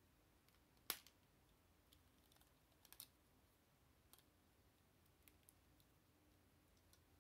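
Lego bricks clicking as they are handled and pressed together: one sharp snap about a second in, a quick pair of clicks near three seconds, then a few fainter ticks.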